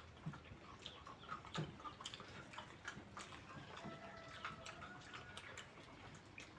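Faint eating sounds: scattered small clicks and smacks of chewing mutton and gnawing on the bones, with faint thin tones in the background around the middle.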